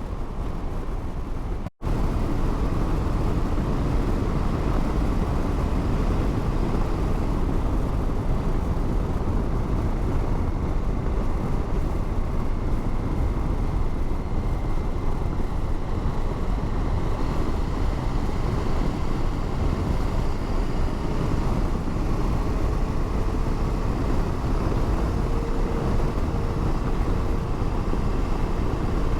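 Motorcycle riding at a steady speed: constant wind and road noise with the engine running underneath, heard through an in-helmet microphone. It drops out abruptly for a moment about two seconds in, then carries on steadily.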